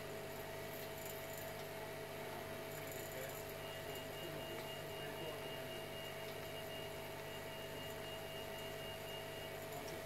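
Steady electrical hum with a thin, even tone. A fainter high whine comes in about three and a half seconds in and stops shortly before the end.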